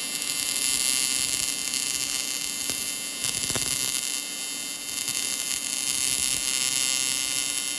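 AC TIG welding arc on aluminum, a steady buzzing hiss with an electrical hum running through it.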